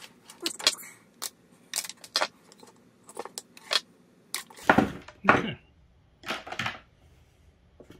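Clicks and clatter of lengths of insulated copper wire and hand tools (wire cutters, pliers) being handled on a wooden workbench, with a few louder knocks about halfway through.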